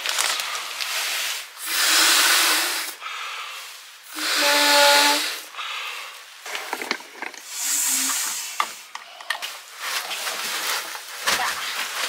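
Air rushing from a pump sack through the valve of an inflatable sleeping pad in three pushes of about a second each, the middle one with a faint whistle, with fabric rustling between them as the sack is refilled.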